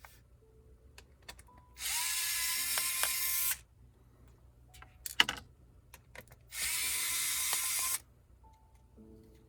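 Small electric screwdriver running in two bursts of about two seconds each, with a steady whine that rises as the motor spins up, driving screws on a laptop. A single sharp click falls between the two bursts.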